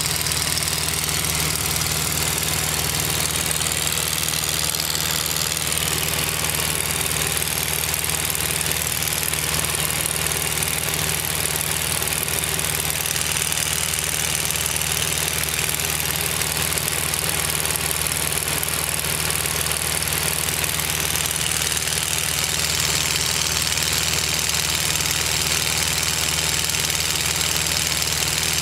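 Mooney Mite light aircraft in cruise flight, heard from inside its small cockpit: the piston engine and propeller drone steadily, with a constant rush of wind noise over the canopy.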